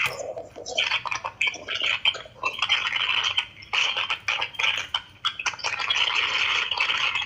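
Scratchy scraping with rapid small clicks, broken by a few brief pauses: a tool working on a smartphone's housing as it is taken apart.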